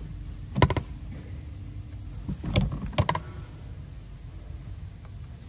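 Plastic electrical connector on a brake booster pressure sensor being worked by hand as its locking tab is flicked back: a few sharp clicks and knocks, one about half a second in and a cluster between two and a half and three seconds in.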